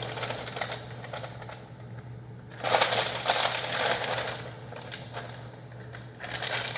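Kitchen handling noise: quick clicks and rustling over a steady low hum, with a louder rustling stretch from about two and a half seconds in that lasts nearly two seconds.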